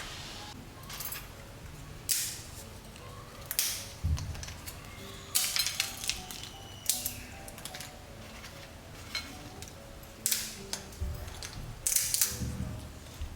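A series of sharp, crisp crunches from fried sweet potato chips, irregularly spaced, over soft background music.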